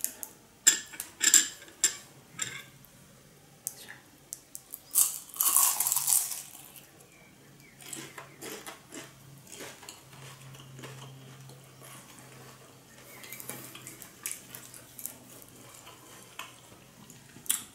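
Crunchy bites into a fried minced-pork spring roll, the loudest crackle about five seconds in, then quieter chewing, with clicks of a small china plate being handled.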